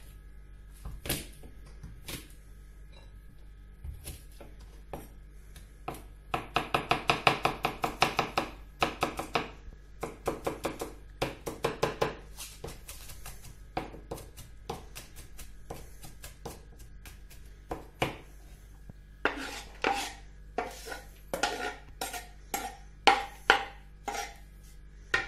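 Chef's knife chopping garlic cloves on a wooden cutting board: quick, even knocks of the blade, about five a second, in a long run, then scattered strokes. Near the end comes a cluster of louder, ringing knocks as the knife pushes the minced garlic off the board into a plastic bowl.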